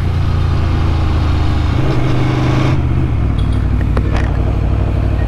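Superbike engine running steadily as the bike rides along, its note shifting about two seconds in. A single sharp click comes near four seconds.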